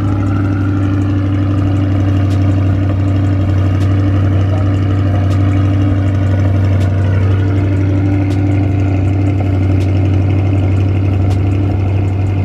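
Car engine running steadily with an even low drone, no revving.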